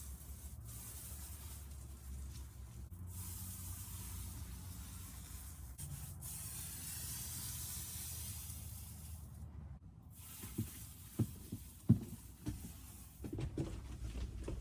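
Plywood sheets being primed with paint: a steady hiss broken by brief pauses every few seconds, then several sharp knocks in the last few seconds.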